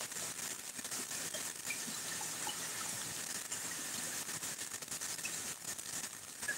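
Steady rain falling through tree leaves: an even hiss dotted with many small taps of drops.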